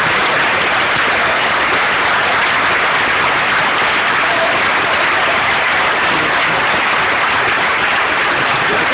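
Large audience applauding steadily, a dense, unbroken wash of clapping.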